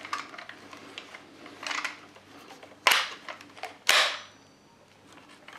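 Feed tray cover of an A&K M249 airsoft light machine gun being closed by hand over dummy rounds: small clicks and rattles, then two sharp clacks about a second apart as the cover is pushed down and latches.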